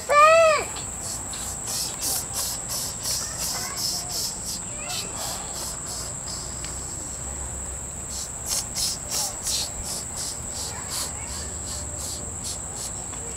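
A child's brief high-pitched squeal at the start, then a steady high-pitched insect drone, with rhythmic pulses of insect chirping that swell and fade.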